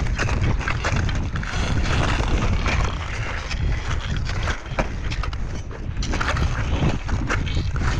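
Footsteps in crampons crunching on glacier ice and snow, many short irregular crunches, over a constant rumble of wind on the microphone.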